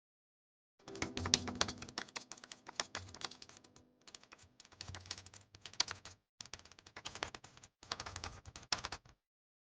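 Rapid runs of small sharp clicks and taps, hard objects knocking together, in several stretches broken by abrupt silences.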